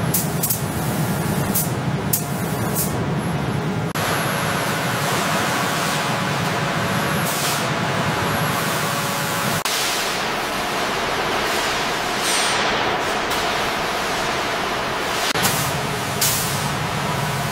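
AI-generated truck-factory ambience: a steady hiss of spraying and machinery over a low hum, with short high beeps now and then. The sound changes abruptly about 4, 10 and 15 seconds in.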